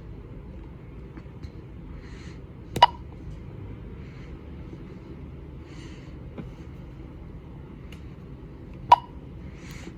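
Security-system touchscreen keypad giving two short beeps about six seconds apart as its screen is pressed, over a faint steady hum.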